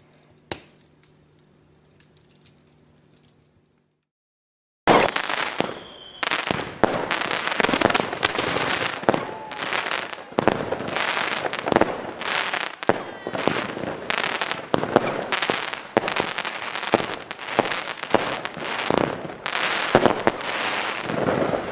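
A 10-shot F3 fountain battery (El Gato 'Bateria de Fuegos') spraying. It lights about five seconds in and runs on as a loud continuous hiss, thick with sharp crackles and pops. Before it lights there is only a faint low hum with a click or two.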